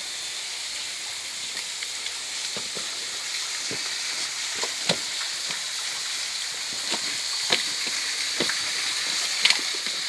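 Steady hiss of a rushing forest stream and its small waterfalls, with a few sharp snaps and crunches from footsteps on leaf litter and twigs, the loudest near the end.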